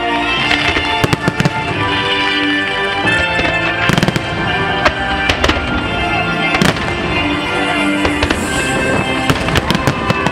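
Fireworks bursting in a string of sharp bangs, the loudest about four and about six and a half seconds in, over loud music.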